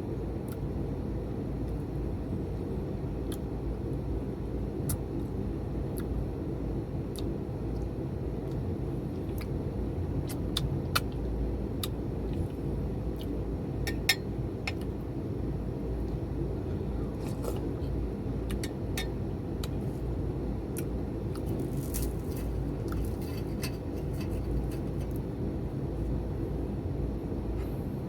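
Steady low background rumble with scattered small clicks and crackles of someone eating crispy fried pork, with a short crunchy crackle about 22 seconds in.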